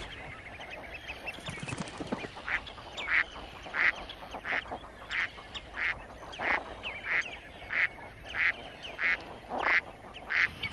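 Common eiders calling: a short call repeated steadily about every two-thirds of a second, beginning about two seconds in.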